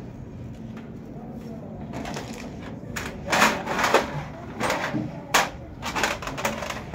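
Steel hand tools clattering and clinking on a metal workbench: a quiet stretch, then a run of sharp clinks and rattles from about three seconds in.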